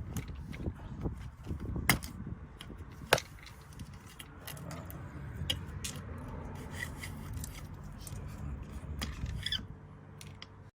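Scattered metallic clicks, knocks and scrapes of hand tools and parts being handled while working under a car's transmission, with two sharper knocks about two and three seconds in, over a low rumble.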